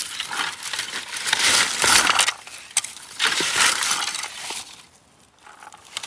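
Plastic berry rake scraping through lingonberry shrubs and dry twigs: rustling and crackling in several strokes, dropping away about five seconds in.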